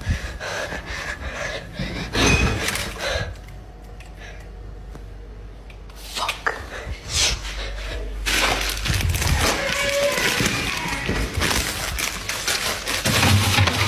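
Irregular knocks, thunks and rustling handling noise of things being moved about inside a refrigerator, with a quieter stretch in the middle.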